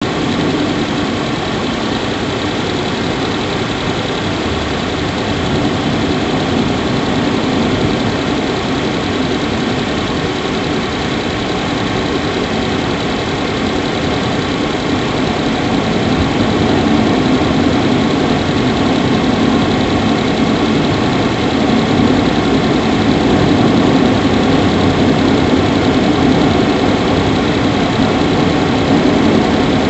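Subaru Levorg 1.6GT-S engine idling steadily, heard close up in the engine bay, growing slightly louder about halfway through. The owner is listening for a squeaky 'kyuri' noise that he suspects is abnormal.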